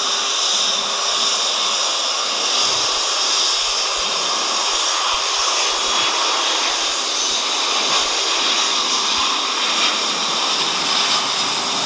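Jet engines of a twin-engine airliner on landing approach: a steady rushing noise with a faint high whine.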